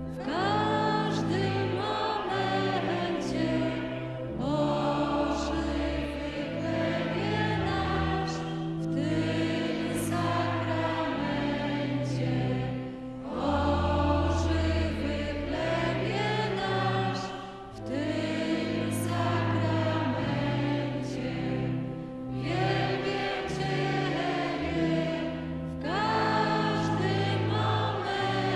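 Church congregation singing a hymn to organ accompaniment, long held organ chords under the voices, in phrases with short breaths between them.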